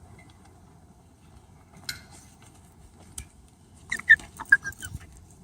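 Dog giving a quick run of short, high-pitched yelps about four seconds in, after a single brief yelp earlier. The dog is protesting the lead and being held in a down-stay, not crying from pain.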